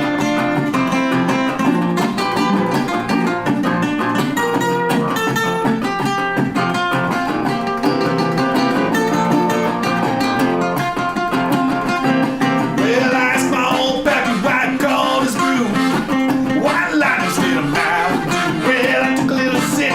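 A band plays an instrumental break of the song, with guitar to the fore. About two-thirds of the way in, the upper part grows busier and higher-pitched.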